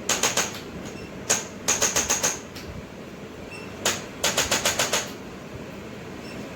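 Sharp mechanical clicking in three quick runs, each a lone click followed by about five or six rapid clicks, then a steady low hiss near the end.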